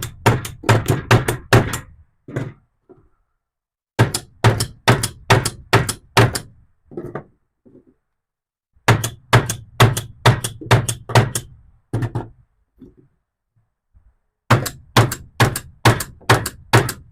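Pistol-mounted red dot sights being slapped, in rapid runs of sharp slaps: four bursts with short pauses between them, as a torture test of whether the optics hold their zero.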